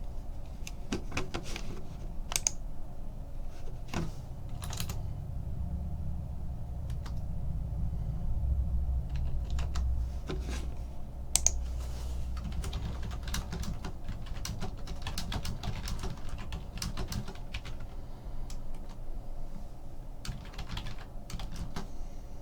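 An irregular run of light clicks and taps, over a low steady hum.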